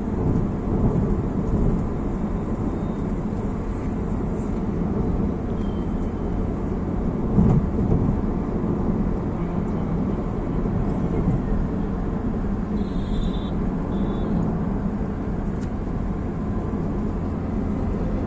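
Steady road and engine noise heard inside a moving car's cabin, with a brief thump about seven and a half seconds in.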